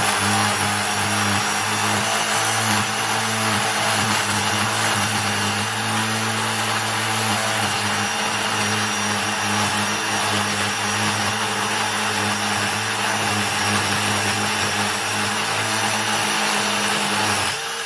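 Milwaukee M18 Fuel Gen 3 impact driver on speed 3, hammering a concrete drill bit steadily through a red concrete brick; the denser brick makes it a long, continuous run. It stops abruptly just before the end.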